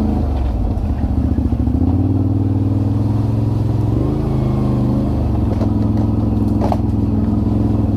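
ATV (quad bike) engine running steadily at low trail speed, its pitch stepping up a little about halfway through, with a couple of short knocks from the rough trail.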